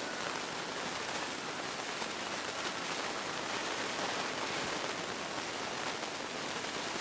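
Steady, even hiss of noise with no strikes or changes in level.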